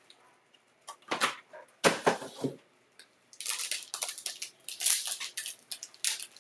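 Trading cards and their packaging being handled: a dense crinkling and rustling starts about halfway through, after two short louder sounds a second or two in.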